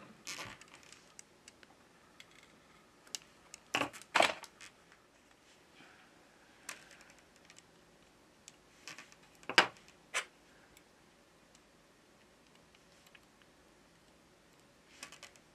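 Scattered light clicks and taps of small phone parts and metal tweezers against the opened phone's frame and board during reassembly, the sharpest a little under ten seconds in.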